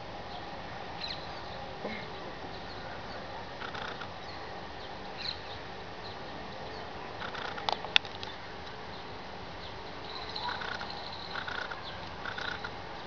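Outdoor ambience of birds chirping now and then over a steady hum, with more frequent chirping from about ten seconds in and one sharp click about eight seconds in.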